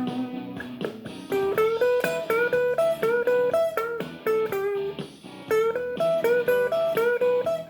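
Guitar playing a blues lick, quick single plucked notes repeating the same short phrase, with a brief lull about five seconds in.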